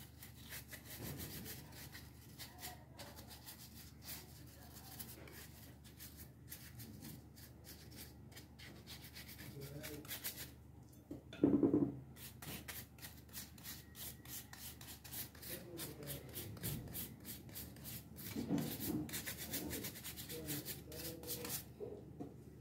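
Bristles of a paintbrush scratching across a cut-out wooden letter as a finish is brushed on, in a quick run of short strokes, with one louder thump about halfway through.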